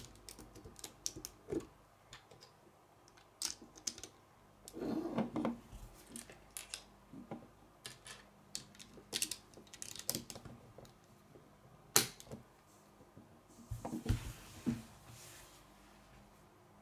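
Plastic Lego bricks clicking and clacking as they are pressed together and picked up off a wooden tabletop: irregular sharp clicks, with two spells of rummaging through loose pieces about five seconds in and near the end.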